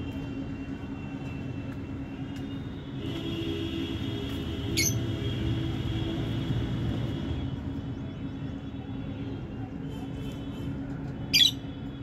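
Two brief, shrill chirps from rosy-faced lovebirds, one about five seconds in and a louder one near the end, over a steady low hum. A low rumble swells and fades in the middle.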